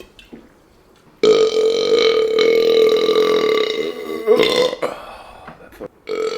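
A man burping loudly: one long, drawn-out burp held at a steady pitch for about three seconds, then a short second burp, and another starting near the end.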